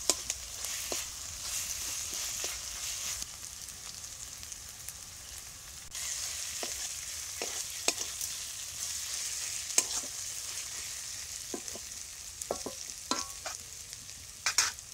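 Onions and spice paste sizzling in hot oil in a kadai while a spatula stirs and scrapes them, with scattered sharp clacks of the spatula on the pan. The sizzle grows louder about six seconds in.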